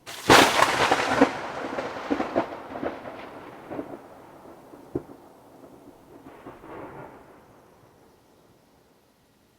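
A thunderclap: a sudden sharp crack a moment in, then a crackling rumble that slowly dies away, with a softer second swell of rumble near the end.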